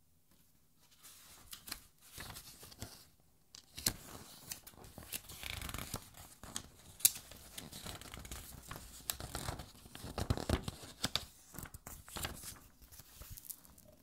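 Paper pages of a hardcover art album being turned by hand: rustling and crisp flicks as several pages are leafed through, starting about a second in.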